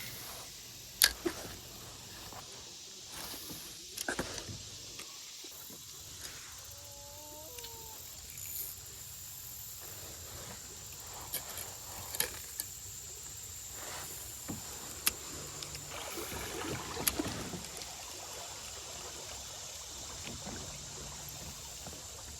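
Faint creekside outdoor ambience with a steady high hiss, scattered small clicks and knocks of handled gear, and one short chirping call about seven seconds in.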